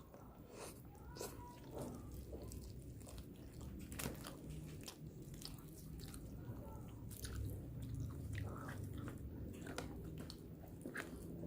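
Close-miked chewing and biting of a nasi padang meal, wet mouth sounds with scattered short crunchy clicks.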